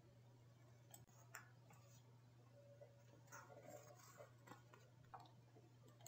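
Near silence: room tone with a faint steady low hum and a few faint small clicks and rustles.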